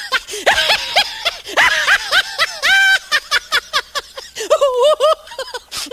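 High-pitched laughing sound effect sold as a funny lion's laugh: rapid chains of short, bouncing laugh syllables, with a lighter stretch a little past the middle before a final burst of cackles.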